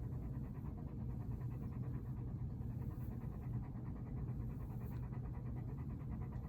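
A dog panting rapidly and steadily, worn out after running about outside.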